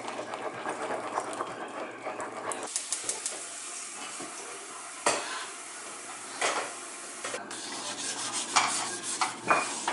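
Pancake batter being stirred briskly in a ceramic bowl, a rapid run of utensil scrapes and clicks against the bowl. After about three seconds it changes to the hiss of a gas burner under a frying pan, with a few knocks of the pan on the grate and butter sizzling as it is rubbed across the hot pan.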